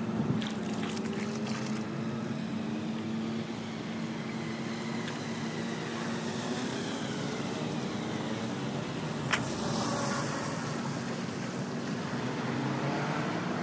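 Vehicle engines running on a flooded road, with a steady hum and engine pitches gliding as traffic moves, over a hiss of water; a box truck approaches through the floodwater near the end. A single sharp click about nine seconds in.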